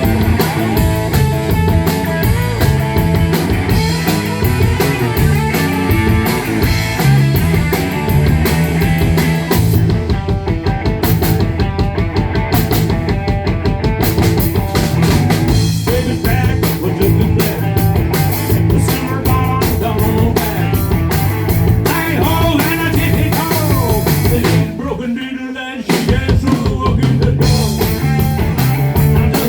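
Rock band music with a driving drum kit and guitar. About 25 seconds in, the drums and bass drop out for about a second before the full band comes back in.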